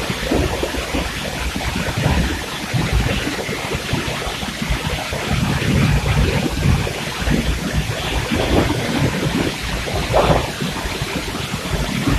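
Noccalula Falls roaring, heard from the rock shelter behind the falling water: a loud, steady rush of water with uneven low rumbling surges.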